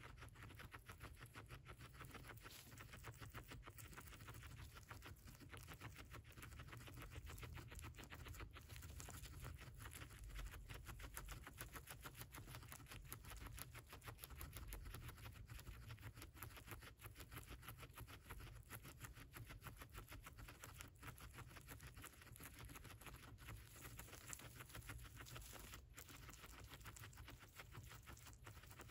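Guinea pig chewing corn husk and silk: a faint, steady run of rapid small crunching clicks.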